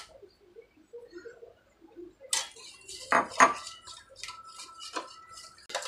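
Metal spoon whisking thick curd in a steel vessel: soft stirring at first, then from about two seconds in a run of clinks and knocks of the spoon against the steel, with the vessel ringing briefly after the harder strikes.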